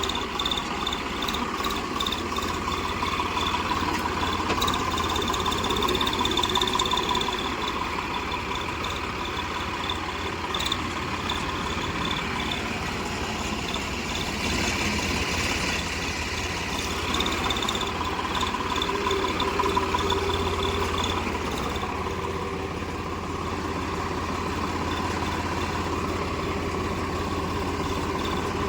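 Tractor diesel engine idling steadily, with a thin high whine riding over its low rumble.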